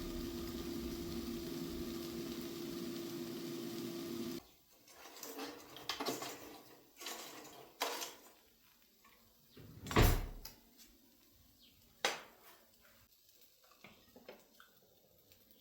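Steady hum and hiss of cooking that stops abruptly about four seconds in, followed by scattered knocks and clatter of kitchen utensils and dishes. The loudest is a heavy thump about ten seconds in, with another sharp knock two seconds later.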